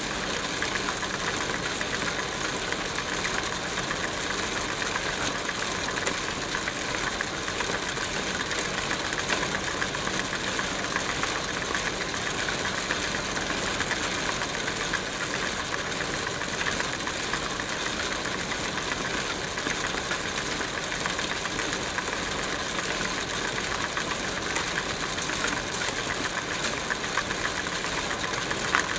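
Bicycle being ridden: a steady mechanical whir of chain and tyres with a fast, even rattle that stays constant throughout.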